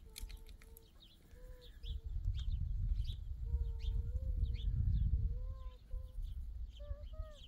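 Birds chirping in quick short notes, with short, repeated, steady-pitched calls from farm animals, over a low rumble that swells in the middle.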